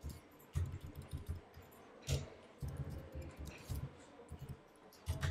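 Typing on a computer keyboard: clusters of quick keystrokes separated by short pauses.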